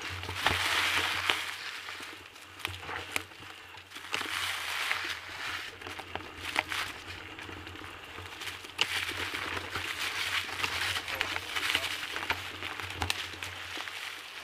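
Dry fallen leaves crunching and rustling underfoot and under bike tyres on a forest trail, with frequent small clicks and knocks.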